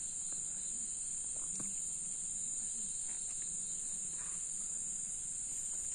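Steady high-pitched chorus of night insects, crickets in kind, with a few faint taps in the middle.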